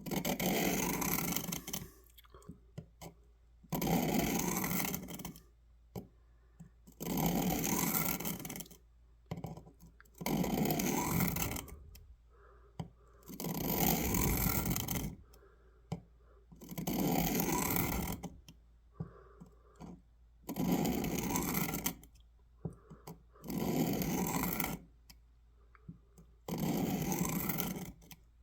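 Steel pocket-knife blade drawn across the 400-grit diamond plate of a Work Sharp Pocket Knife Sharpener: ten slow, even strokes, each a scraping hiss about a second and a half long, with short pauses between them. This is the second side of the edge being ground after a burr was raised on the first.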